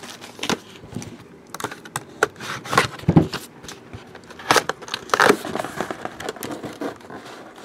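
Scattered rustling and light clicks of photographs and their packaging being handled and shuffled.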